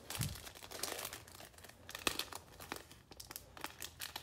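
Foil wrapper of a Donruss Optic football card pack crinkling and tearing as it is pulled open by hand, a run of irregular crackles.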